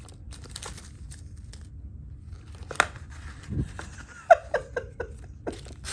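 Metal fidget slider pieces being handled, clicking and clacking against each other. About four seconds in comes a quick run of clicks that ring briefly, like metal parts snapping together.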